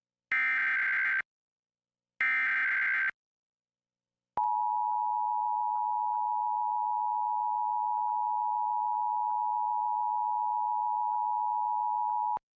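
Emergency Alert System alert start. Two bursts of SAME header data tones, each about a second long and a second apart, mark the start of an alert. About a second later the EAS two-tone attention signal (853 and 960 Hz together) sounds steadily for about eight seconds and then cuts off abruptly.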